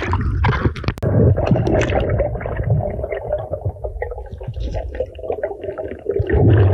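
Underwater water noise heard during a free dive: a muffled low rumble and wash of moving water, full of small crackling clicks. A sharp click comes about a second in, and the rumble swells near the end.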